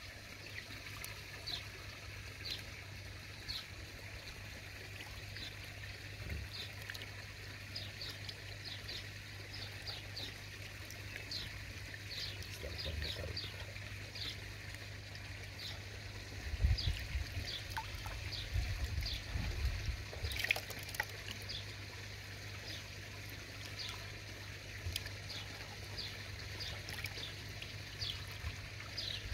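Water trickling into a garden pond, a steady soft splashing, with many short high plinks scattered through it and a few low thuds in the middle.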